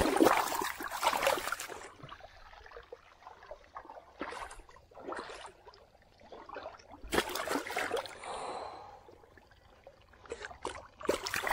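Shallow pond water splashing and sloshing in irregular bursts as a large broodstock carp thrashes while being grabbed by hand, loudest in the first couple of seconds and again about seven seconds in and near the end.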